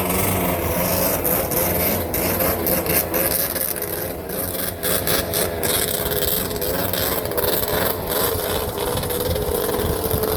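Snowmobile engines running with a rasping sound, their pitch rising and falling steadily as the sleds rev.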